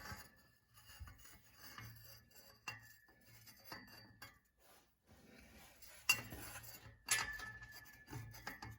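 Steel hand tools clinking and scraping against each other and the exhaust hardware: about seven sharp metallic clinks at irregular intervals, some leaving a short high ring, with rubbing in between. The tools are being fitted to seized exhaust bolts that will not turn.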